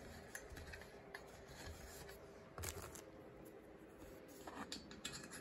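Faint rubbing and a few light clicks of hands handling the parts of a flat-pack fabric dresser, the sharpest click about two and a half seconds in.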